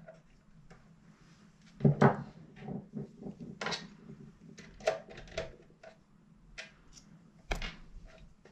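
Clicks and knocks of an opened plastic projector housing and small tools being handled on a wooden table, with a louder thump about two seconds in and another near the end.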